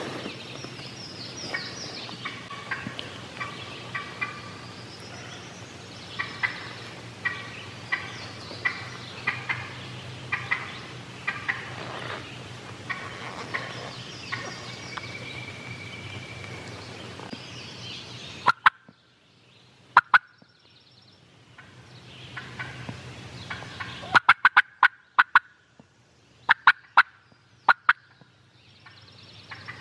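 Wild turkey hen calling excitedly: long runs of rapid, evenly repeated yelps, then from about 18 seconds in, sharp clipped notes in quick clusters with pauses between.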